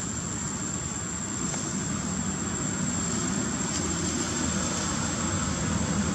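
A steady mechanical rumble with a hiss and a thin, high, constant whine, slowly getting a little louder.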